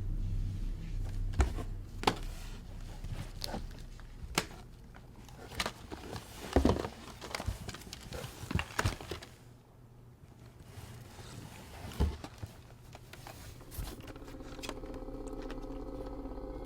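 Scattered knocks, clicks and handling sounds in a small quiet room, busiest in the middle, then a steady low hum that sets in shortly before the end.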